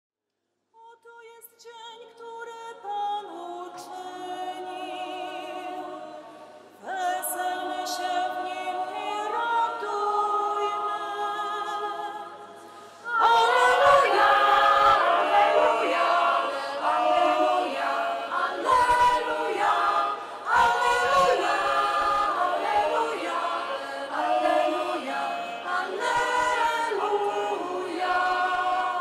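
A church choir of several voices singing a slow hymn, soft at first and becoming louder and fuller about thirteen seconds in.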